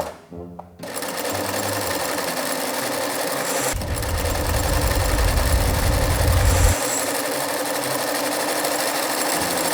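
Old Singer sewing machine stitching steadily at a fast even rate, starting about a second in. A deep low hum joins for about three seconds in the middle.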